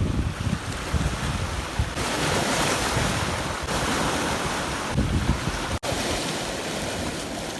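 Surf washing onto a beach, a steady hiss that swells for a couple of seconds, with wind buffeting the microphone in uneven low rumbles.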